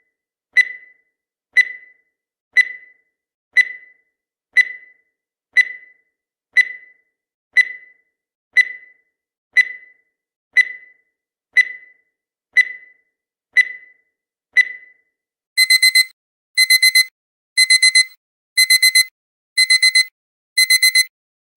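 Digital countdown timer sound effect: a short, fading beep once a second, until about 15 seconds in, when the count reaches zero. Then an alarm-clock beeping starts, in quick groups of four beeps repeating about once a second.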